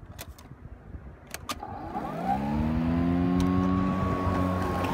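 Kobalt 80-volt cordless electric lawn mower starting: a few sharp clicks, then about two seconds in the motor spins up with a rising whine and settles into a steady hum.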